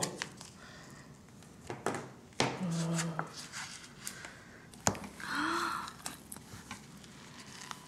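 Small handling sounds from opening an ice cream cup and scooping it into a mug: the lid being peeled and a metal spoon giving a few sharp clicks and scrapes. Two brief hums or grunts from the cook come in between.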